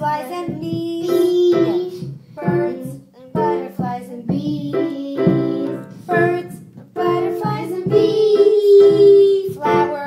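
A child singing a song into a microphone with piano accompaniment, holding long notes about a second in and again near the end.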